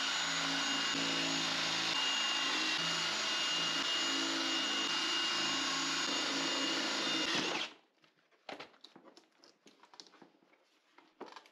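Ridgid cordless drill running steadily with a twist bit, drilling out the plastic welds that hold a speaker grille into a car door card. It stops abruptly about eight seconds in, and faint scattered clicks and taps follow.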